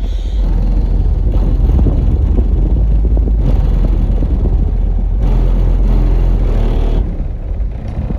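Music played loud through a single 10-inch subwoofer in a fourth-order bandpass enclosure, with heavy deep bass dominating. The upper parts of the song come and go in sections every couple of seconds.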